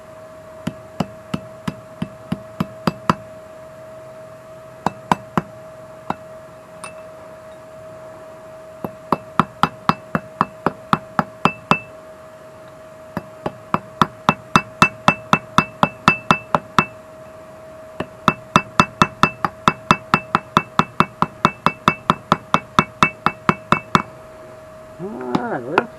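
A 3-pound hammer striking a bent steel nail punch laid on a steel plate to straighten it, with a metallic ring. The blows are scattered at first, then come in fast runs of about three to four a second, over a faint steady hum.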